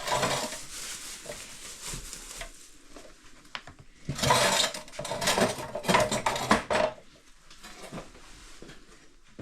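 Dishes and cutlery clattering as they are handled: a short burst at the start, then a longer, louder bout of knocks and rattles from about four to seven seconds in.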